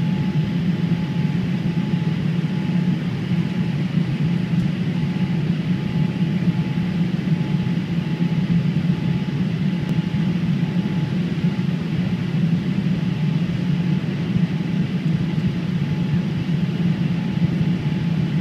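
Steady cabin noise inside a Boeing 787-8 on final approach, heard from a seat over the wing: a low, even rumble of airflow and engines with a faint steady high tone above it.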